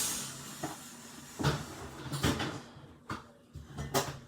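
Several short knocks and clunks, about one a second, as things are handled and set down, like cupboard doors or food boxes.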